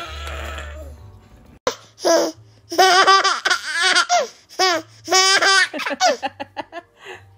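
A baby's short, whiny protesting cry at the start, then a baby laughing in repeated bursts of giggles, tickled by a head being rubbed side to side on his belly.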